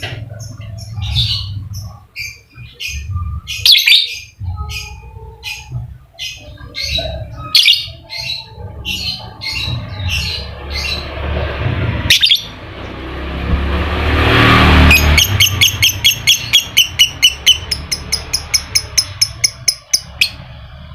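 Lovebird calling in a series of sharp, shrill chirps, then breaking into a fast, even run of chirps (its 'ngekek' chatter) for the last few seconds, over a low rumble. A hissing sound swells and fades just before the fast run.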